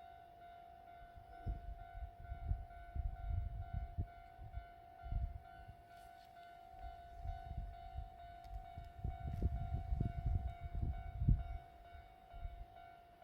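Kintetsu Kyoto Line train passing with low rumbling that swells and fades, loudest about ten seconds in, under a railway level-crossing alarm ringing a steady, faintly pulsing warning tone.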